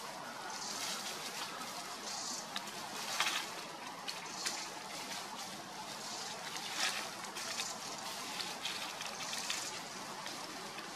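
Dry leaf litter crackling and rustling in short bursts as monkeys shift and move on it, over a steady outdoor hiss that swells now and then in the high range.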